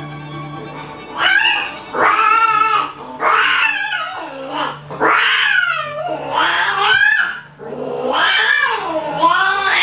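Domestic cats caterwauling while mating: a run of loud, long, wavering yowls that rise and fall in pitch, about one a second, starting about a second in. Faint background music runs underneath.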